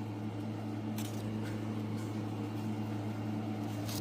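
Steady low electrical or mechanical hum of room background noise, with a few faint clicks.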